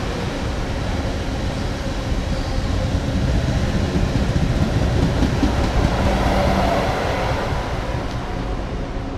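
South Western Railway Class 444 electric multiple unit running past on the main line, its wheels rumbling on the rails. The sound swells through the middle and eases off near the end.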